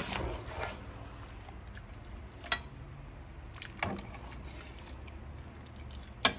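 A ladle clinking sharply against the stainless pot and the glass baking dish three times as chicken tinola is served out, over a faint steady low hum.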